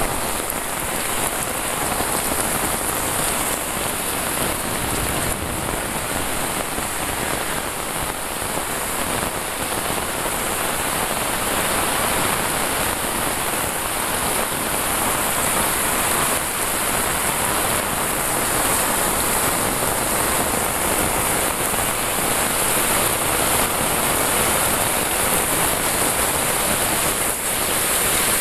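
Heavy rain: a steady, even hiss of a downpour falling on leaves, roofs and a wet paved lane, with runoff pouring off the eaves.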